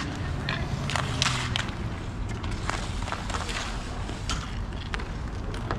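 Hockey play on an outdoor concrete rink: scattered sharp clacks of sticks and hits, the loudest about a second in, over a steady low rumble of play on the surface.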